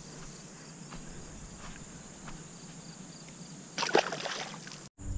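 A smallmouth bass splashing into shallow creek water about four seconds in as it is released, over a steady chirring of insects.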